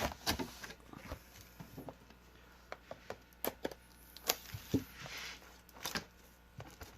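Cardboard trading-card boxes and their packaging being handled: scattered light taps and scrapes, with a short rustle about five seconds in.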